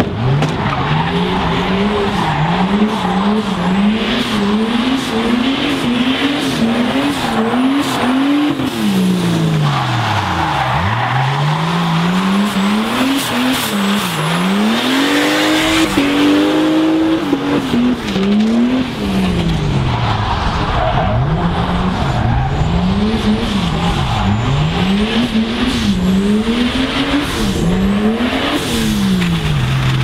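Drift car engine revving hard, its pitch bouncing up and down about twice a second, with several deep drops in revs, over tyres squealing as the car slides.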